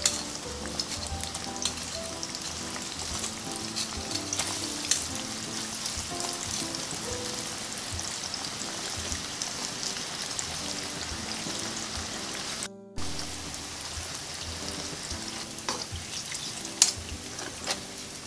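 Battered chicken pieces deep-frying in hot oil in a pan during their second fry, a steady sizzle. A few sharp clicks of utensils against the pan, the loudest near the end.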